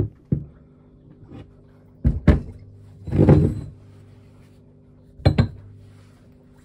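Cast-iron Mazda RX-8 13B rotary-engine rotors handled on a workbench: a string of knocks and clinks as they are lifted, turned and set down, with a longer, rougher sound about three seconds in as one is moved across the bench. A faint steady hum sits underneath.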